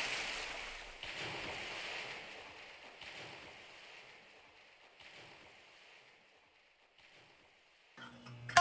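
Water washing and lapping, a rushing noise that fades in swells about a second apart until it is faint. Plucked string music comes in right at the end.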